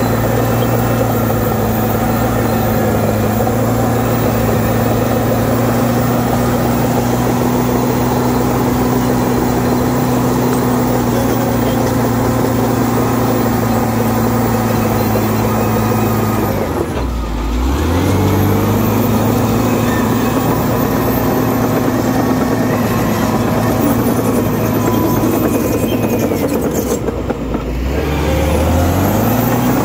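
Caterpillar D7R crawler dozer's diesel engine running steadily under work. Twice, about halfway through and again near the end, its note drops sharply and then climbs back up.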